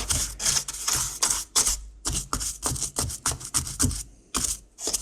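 Stiff brush scrubbing coffee buildup from around the burr of a Sage Barista Express grinder: bristles scratching, with rapid irregular clicks and ticks as the brush knocks against the grinder. The scrubbing pauses briefly twice near the end.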